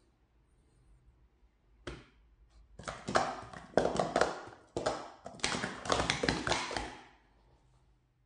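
Plastic sport-stacking cups clattering rapidly for about four seconds as they are up-stacked into pyramids and down-stacked again. A single tap comes just before the run starts.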